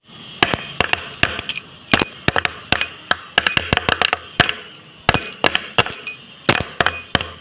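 Rapid, irregular clinks and knocks of hard objects, about four a second, some ringing briefly.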